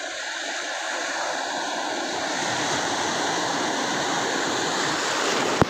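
Ocean surf breaking on a beach: a steady rush of waves and whitewater. A single sharp click comes near the end.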